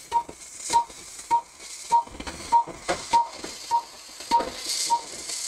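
Short electronic beeps from operating-room equipment, evenly spaced at about one every 0.6 seconds (roughly 100 a minute), with faint clicks and hiss between them.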